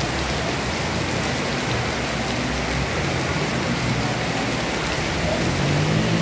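Heavy tropical downpour falling steadily on a flooded street. A vehicle engine hums low beneath the rain near the end.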